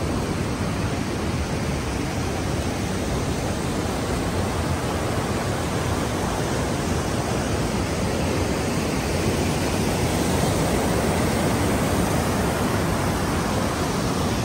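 A steady, loud rushing noise with no clear pattern or single events in it.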